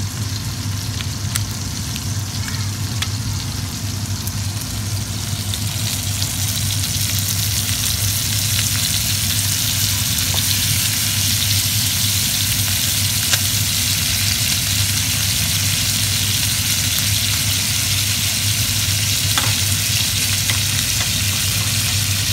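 Two steaks sizzling in butter in a cast-iron skillet, a steady hiss that swells to full strength a few seconds in as the steaks and melting butter pats fry. A steady low hum runs underneath.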